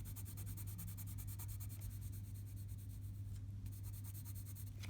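Colored pencil shading on paper: faint, rapid back-and-forth strokes over a steady low electrical hum.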